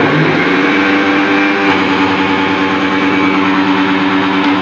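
Electric kitchen mixer grinder's motor running at full speed, a loud, steady whine at an even pitch. A switch clicks near the end.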